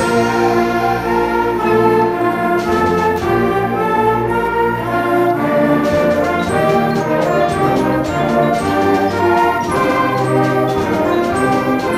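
A student concert band playing a sustained full-ensemble passage, woodwinds and brass together over a low bass line. It is a virtual band mix built from the players' separate home recordings.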